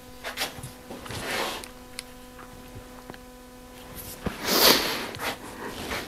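Soft rustling and shuffling of a person moving about, loudest about four and a half seconds in, over a steady low hum that cuts off with a click just after four seconds.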